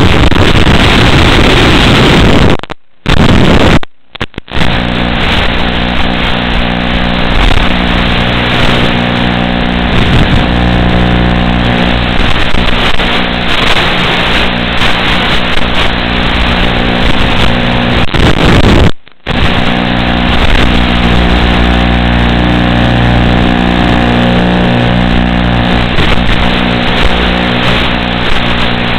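Brushless motors and propellers of a 4S FPV quadcopter buzzing in flight, loud and distorted, with steady motor tones that shift in pitch as the throttle changes. The sound drops out briefly three times, twice close together early on and once past the middle.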